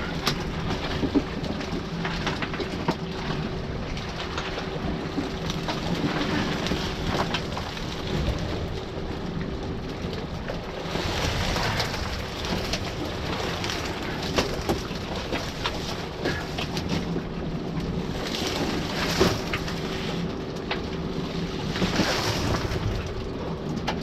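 A small boat's motor running steadily, with wind on the microphone and a few louder surges of water noise.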